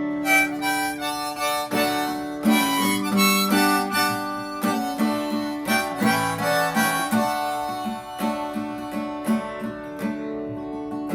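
Harmonica solo over steadily strummed acoustic guitar in a country tune: held, reedy notes that run busier and louder through the middle, then settle back.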